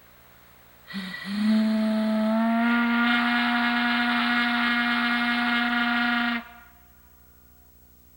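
Five-inch Powell chime whistle blown on compressed air: a single blast of about five and a half seconds, sounding a chord of several tones at once. It starts about a second in with a brief stutter as the valve cracks open, rises slightly in pitch as it opens fully, holds steady, and cuts off sharply.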